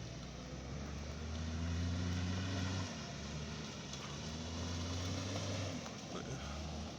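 Toyota Land Cruiser 80 series engine under power while drifting, its pitch climbing twice and dropping sharply after each climb as the throttle comes off.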